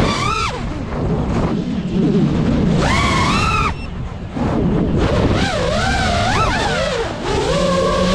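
GEPRC Mark5 FPV quadcopter's motors whining, the pitch repeatedly rising and falling with the throttle, over a rushing wind noise.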